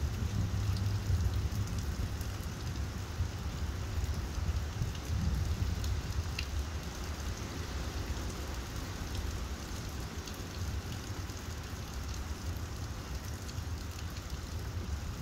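Steady rain falling, with scattered faint drip ticks and a low rumble that is strongest in the first couple of seconds and then eases.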